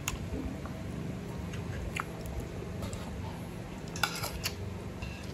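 A person chewing food, with a few sharp clicks of a metal spoon against a plate, several of them in quick succession about four seconds in. A steady low hum runs underneath.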